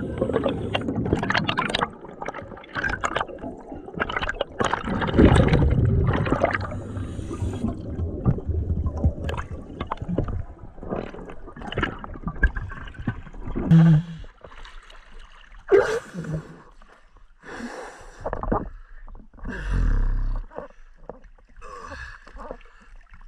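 Underwater bubbling and gurgling from a diver's exhaled air, loud in bursts at the start and again about five seconds in. It then gives way to quieter gurgles and knocks, with water splashing near the end as the camera comes up at the surface.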